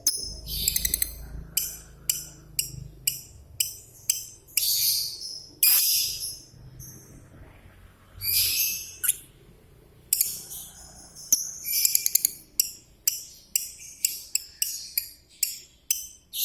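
Pet lovebird calling: quick irregular series of sharp, high chirps and short shrill screeches, broken by a couple of short lulls.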